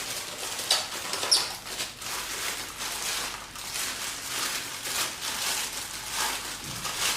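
Plastic packaging rustling and crinkling as it is handled during unpacking, with irregular crackles and a few sharper crinkles about a second in.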